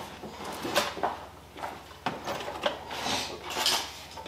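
Irregular metallic knocks and clanks, about five in the first two and a half seconds, then a brief rattling scrape. These are the sounds of a car's rear subframe being worked loose and lowered on a floor jack past the brake lines.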